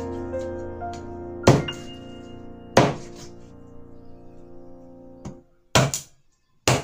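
Meat cleaver chopping through raw chicken onto a plastic cutting board: single sharp thunks a second or so apart, then three or four quicker chops near the end, over background music with held piano-like notes.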